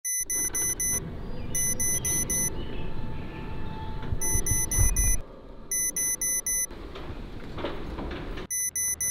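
Alarm clock beeping in quick runs of four short high beeps, a run every second or so, with a short break about halfway through, over a low rumble.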